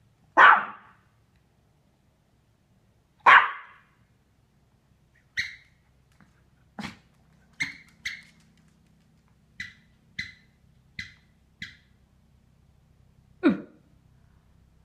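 Pomeranian barking: loud single barks about half a second in, a few seconds later and again near the end. Between them comes a run of about eight short, quieter, higher yips, spaced roughly a second apart.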